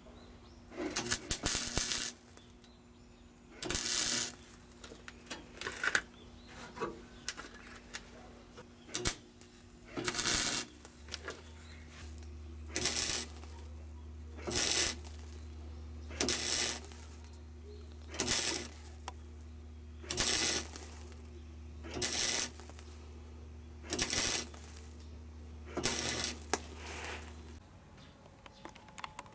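Wire-feed welder laying short tacks on car body sheet metal, about one every two seconds, each a brief half-second burst, over a steady electrical hum.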